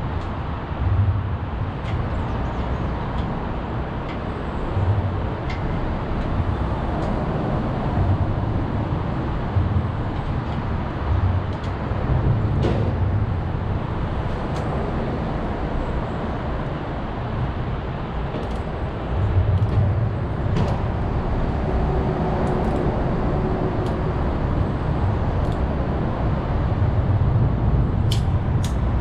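Steady low rumble of background noise with uneven swells, and occasional light clicks of hand tools on metal, a few together near the end.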